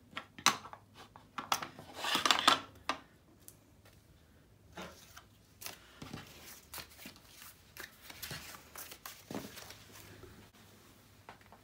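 Craft tools and paper cards being handled on a cutting mat: a few sharp clicks and taps, with the loudest rustling scrape about two seconds in, then fainter scattered rustles and ticks as the cards are gathered up.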